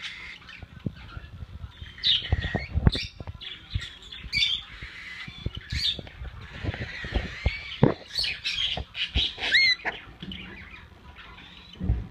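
Cockatiels in a wire cage chirping and squawking in short calls, with one short rising whistle about two-thirds of the way through. Scattered clicks and knocks sound throughout.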